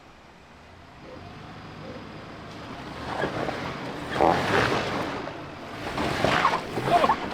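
Off-road vehicle working through a muddy, rooty trail section: a low engine hum that builds into loud surges of rushing noise from about three seconds in.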